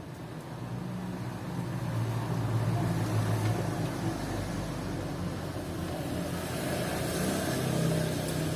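A motor vehicle's engine running close by, a low steady hum that grows louder over the first few seconds and then holds.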